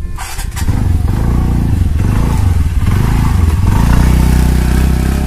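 Motor scooter engine coming in after a few clicks, revving as the scooter pulls away, then starting to fade near the end as it rides off.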